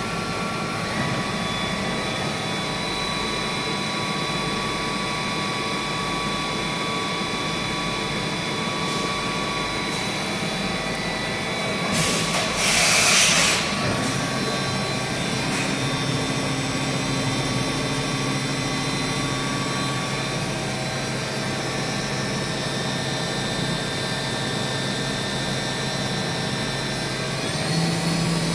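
Matsuura H.Plus-405 horizontal machining center running: a steady mechanical hum with several thin whining tones. About twelve seconds in a loud hiss lasts under two seconds, a lower steady hum then sets in, and a rising whine begins near the end.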